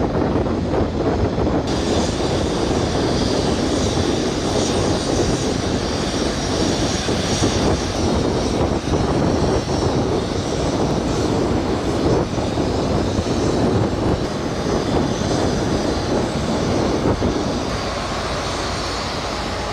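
Steady, loud roar of wind buffeting the microphone, with an added hiss that comes in about two seconds in and drops away near the end.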